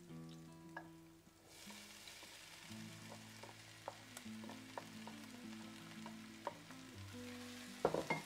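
Chopped onion frying in oil in a stainless steel pot at the start of a sofrito: a steady sizzle, with a spatula tapping now and then and a burst of scraping and knocking against the pot near the end.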